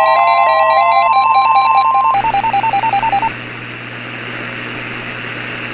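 Electronic alert tones of a mock emergency broadcast. A steady single tone near 1,000 Hz, like the weather-radio warning alarm tone, sounds over a melody of fast alternating electronic beeps. The steady tone cuts off about two seconds in and the beeping about three seconds in, leaving a steady hiss.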